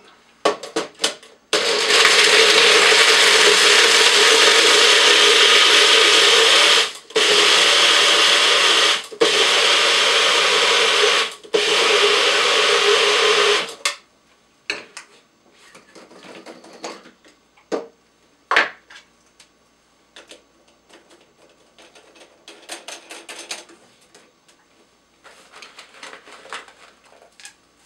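Party Bullet personal blender running for about twelve seconds, crushing ice and frozen strawberries for a frozen margarita, with two short breaks in its running. After it stops, scattered light knocks and clinks as the cup comes off the base.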